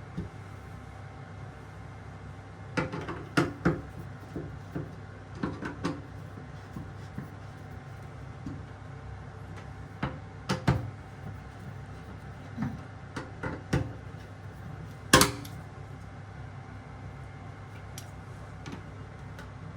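Scattered clicks and knocks of hand work on a kitchen faucet installation, such as tools and metal or plastic parts being handled, set down and tapped, coming in small clusters. One sharp knock about 15 seconds in is the loudest, and a steady low hum runs underneath.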